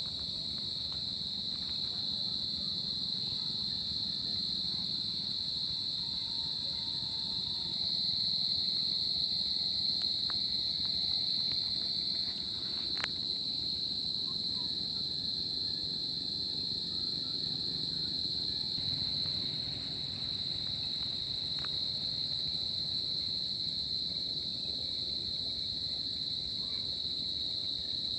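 A chorus of crickets chirping in a continuous, steady high-pitched trill over a low background rumble, with a few faint ticks.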